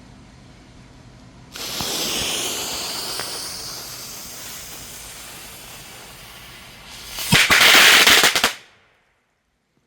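Small consumer firework fountain going off: it catches about a second and a half in with a sudden hissing spray that slowly dies down. Near the end it breaks into a loud rapid crackle of little firecracker pops for about a second and a half, then stops abruptly.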